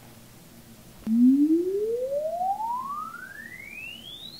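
Sine sweep played through a Presonus R65 studio monitor, rebuilt as a passive speaker with an external crossover and its L-pad set wide open, for a Room EQ Wizard frequency-response measurement. A single pure tone starts with a click about a second in and glides steadily up from a low pitch to a high whistle, loudest at its start.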